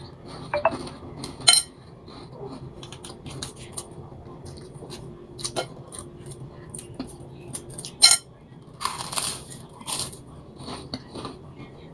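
Small clicks and scrapes of a plastic knife spreading on toast against a plate, and close-up chewing. A sharper click comes about a second and a half in and again around eight seconds, and a noisy bite of toast comes near the end.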